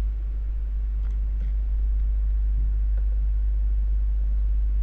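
Steady low electrical hum in the recording, with a few faint clicks about a second in and again near three seconds.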